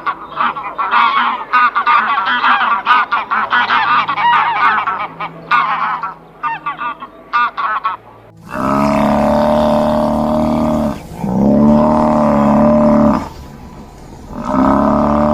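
A flock of geese honking, many short calls overlapping rapidly. Then three long, loud, low calls from a large farm animal, each about two seconds.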